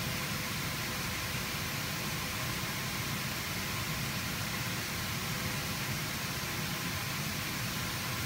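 Steady machine noise: an even hiss over a low rumble, with faint steady tones, unchanging throughout.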